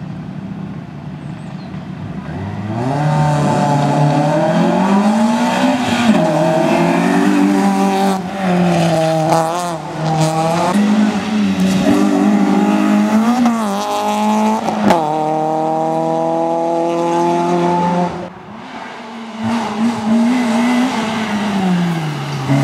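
Hill-climb race car engine, a Citroën Saxo's four-cylinder, driven at full throttle: it comes in about two seconds in and its pitch rises and falls again and again as it revs up through the gears and backs off for corners. Near the end it cuts off suddenly and another car's engine comes in, revving up.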